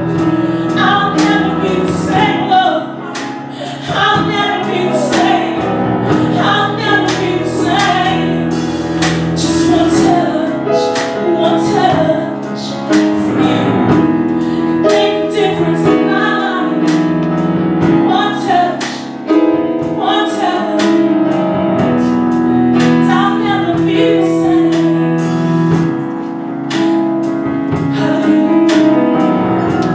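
Gospel choir singing with instrumental backing and a steady beat, a woman's voice prominent.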